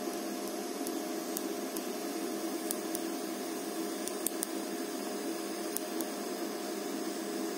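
DC TIG welding arc on stainless steel with filler wire being fed: a steady hiss with a low hum and a few faint ticks.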